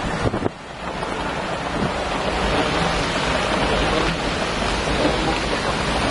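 Storm wind and rain in a steady loud rush, gusts buffeting the microphone; the noise dips briefly about half a second in.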